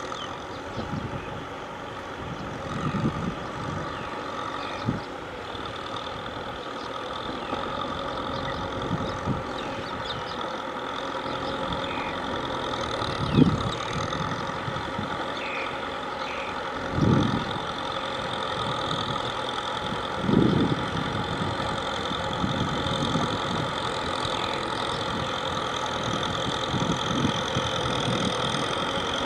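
Tractor engine running steadily, with a few short low thumps partway through.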